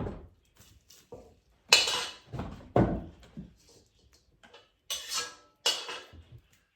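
Kitchen cookware and utensils being handled: a few separate metal clanks and clatters, about a second or two apart, with smaller knocks between.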